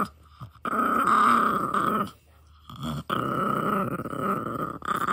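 Shiba Inu growling with a bone in her mouth: two long, drawn-out whiny growls with a short one between them, a guarding protest at being disturbed while she has her bone.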